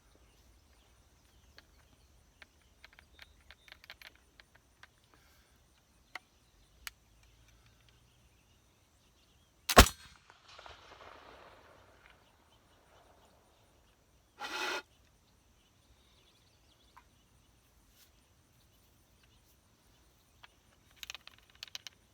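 A black-powder flintlock pistol fires once about ten seconds in, a single sharp report with a short fading echo. Light clicks of handling come before it, and a brief burst follows about five seconds later.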